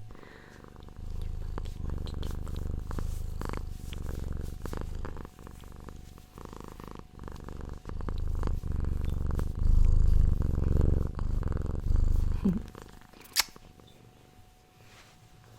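Cat purring close to the microphone, a low, finely pulsing rumble that swells and eases in long waves and dies away about twelve seconds in. A single sharp click comes near the end.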